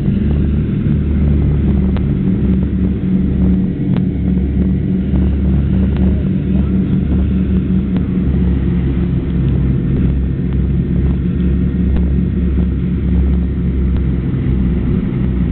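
Douglas DC-3's twin radial piston engines running steadily with a deep, even drone.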